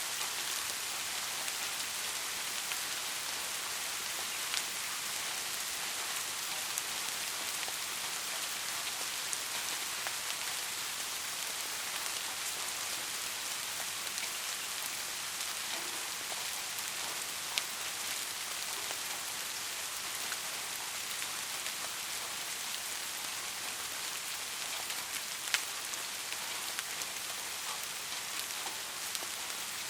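Steady rain falling, an even hiss with a few sharp ticks standing out now and then.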